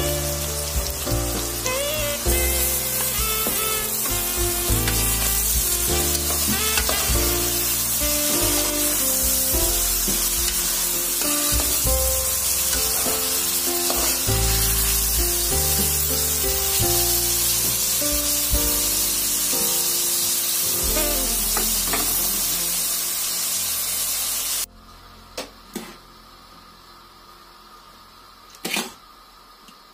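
Vegetables for plov frying and sizzling in a pot under background music, with some stirring. Music and sizzle cut off suddenly about 25 seconds in, leaving a quiet stretch with a few soft knocks.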